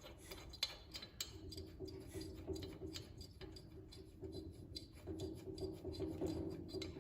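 A bolt being run in to hold an engine's sheet-metal tins: a steady run of light metallic clicks and rubbing, a few a second.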